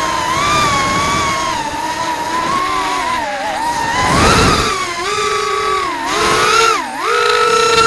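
FPV racing quadcopter's motors and propellers whining, the pitch rising and falling with the throttle, with a short whoosh about four seconds in as it passes close.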